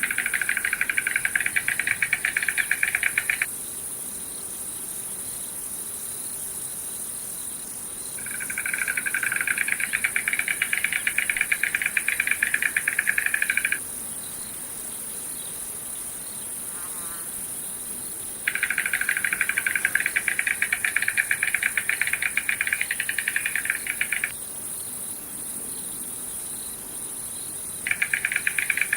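Insect trilling: a fast pulsing buzz in bouts of about five seconds with pauses of several seconds between, over a steady high-pitched insect chorus.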